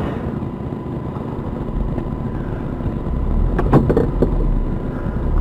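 A motor vehicle's engine and road rumble, steady and low, growing a little louder partway through, with a few short knocks about three and a half to four seconds in.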